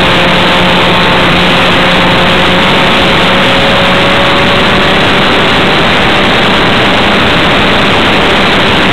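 Great Planes Cherokee R/C airplane in flight, heard from a camera on board: the engine and propeller run steadily under a loud, even rush of wind noise.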